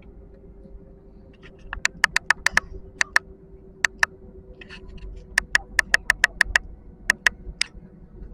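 Sharp dry clicks in quick irregular clusters over the low steady hum of an airliner cabin on the runway.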